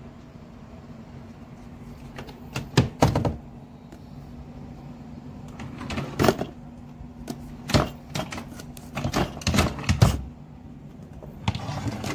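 Kitchen cabinet doors and drawers being handled, opened and shut: several bursts of knocks, clacks and rattling contents, over a steady low hum.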